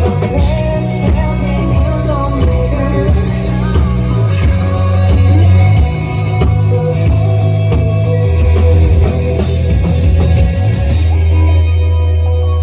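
Live indie rock band playing with drum kit, bass and guitars, loud and full. About eleven seconds in the cymbals and drums stop, leaving held notes ringing.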